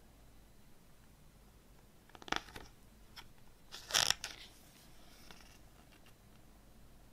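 Paper rustling as a CD booklet's glossy page is turned by hand: a short rustle about two seconds in, then a louder swish of the page about four seconds in.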